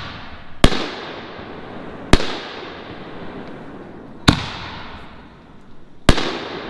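Four-inch canister aerial firework shells going off: four sharp bangs about one and a half to two seconds apart, each followed by a long rolling echo.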